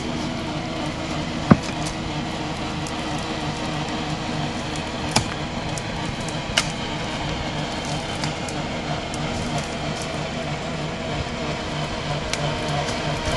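Toyota Land Cruiser LJ70-series diesel engine running steadily while its PTO winch line is tensioned to a cut tree trunk, with a few sharp clicks or snaps, the loudest about one and a half seconds in.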